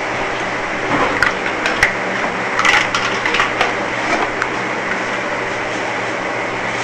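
Steady mechanical hum and hiss, like a fan or motor running, with a few light clicks and taps between about one and four and a half seconds in.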